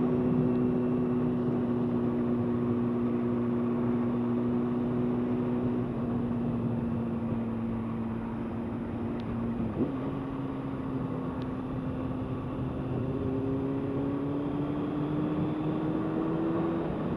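Honda CBR600F4i's inline-four engine running under way, its pitch sagging slowly, a brief blip about ten seconds in, then revs climbing steadily toward the end, with wind noise on the microphone.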